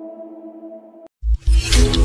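Background music: sustained synth tones without bass fade and cut off about a second in. After a brief silence, a new track starts with a heavy pulsing bass beat and a bright crash near the end.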